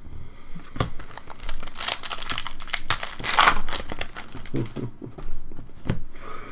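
Foil wrapper of a 2015-16 Upper Deck Full Force Hockey card pack crinkling and crackling as it is handled and torn open by hand, with two louder stretches about two and three and a half seconds in.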